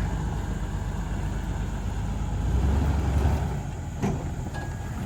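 Off-road vehicle's engine running under load as it is bumped up against an obstacle, its low rumble rising a little past two seconds in and easing again. A short knock comes about four seconds in.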